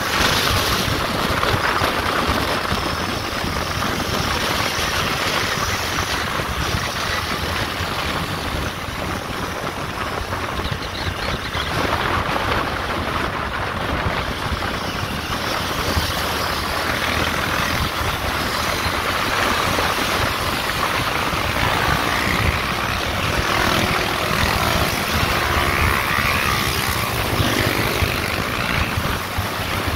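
A vehicle on the move: a steady engine under constant wind rush, with no breaks.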